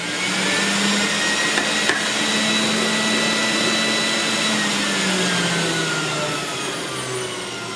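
Breville centrifugal juicer's motor running on its high setting, a steady whine that sounds like an airplane taking off. Its pitch sinks gradually over the last three seconds as the motor slows.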